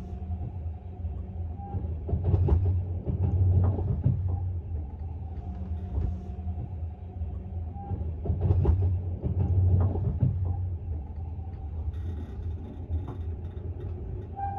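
Railway sleeping car running on the track, heard from inside the compartment: a steady low rumble, with two louder stretches of wheel clatter about two and eight seconds in.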